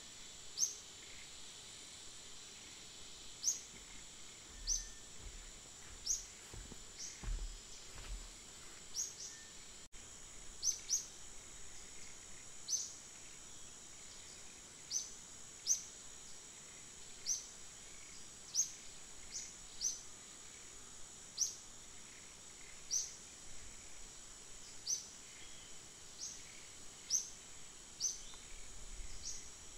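Outdoor wildlife ambience: a steady high-pitched insect drone, with short high chirps repeated every second or two. A few faint low thumps come about five to eight seconds in.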